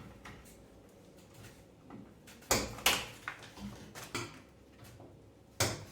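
Several short, sharp knocks and clicks of hard parts being handled and set down, the loudest two close together about two and a half seconds in and another near the end.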